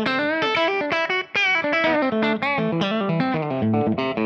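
Electric guitar played through a Kemper Profiler amp profile: a fast single-note lead run with several string bends.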